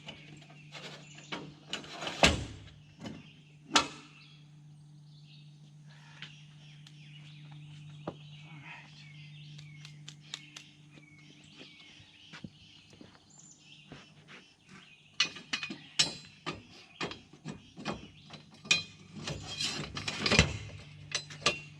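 Scattered sharp knocks and clinks over a low steady hum, with a bird chirping now and then in the middle.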